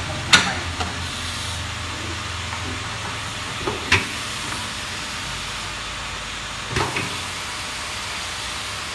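Three sharp metal clanks a few seconds apart as a motorcycle wheel and tools are handled on a tyre-changing machine, over a steady hiss.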